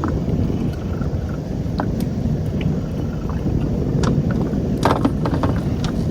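Steady low rumble of a fishing boat at sea, with a few faint scattered clicks.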